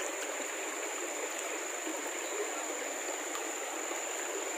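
Shallow river water running steadily over rocks, with a thin, steady high-pitched whine throughout.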